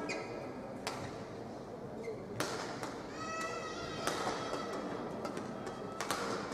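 Badminton rackets striking a shuttlecock in a rally, four sharp cracks about a second and a half apart. A short pitched squeak, typical of a court shoe, comes about three seconds in. All of it sits over the steady hum of a large hall.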